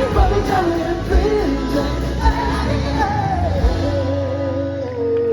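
Live pop-rock band with singing: a sung melody over drums and bass. About four seconds in, the drums stop, leaving a long held sung note that dips at the end.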